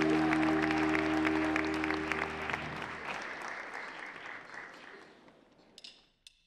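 A live band's held chord with audience applause over it. The chord cuts off about two and a half seconds in, and the applause dies away over the next few seconds.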